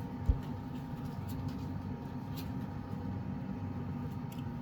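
Steady low hum of room background noise, with one short low thump just after the start and a few faint clicks.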